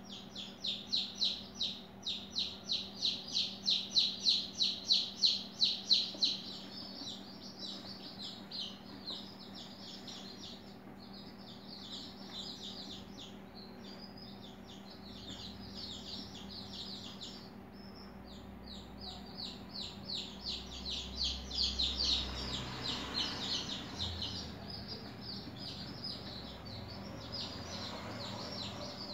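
Rapid, repeated high chirping of a bird, about four chirps a second, loudest in the first six seconds and again around twenty seconds in, over a steady low hum.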